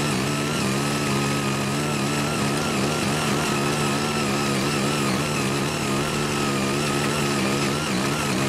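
Small 5 hp engine of a CY80 foldable mini tiller running steadily under load as its eight rotary tine blades till soil, its speed wavering slightly as the tines dig in.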